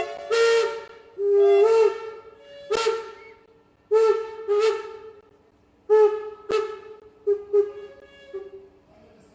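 Steam locomotive whistle sounding a run of about ten short blasts of differing length, several tones together, each opening with a burst of hiss and a slight bend in pitch.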